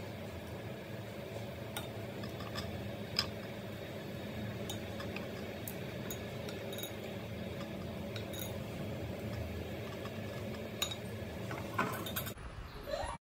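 A few light clinks of a glass bowl and plate over a steady low hum.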